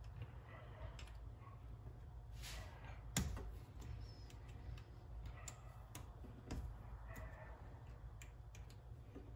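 Scattered faint clicks and light metal knocks as a mini lathe's tool post and compound slide are loosened and repositioned by hand, the loudest knock about three seconds in, over a steady low hum.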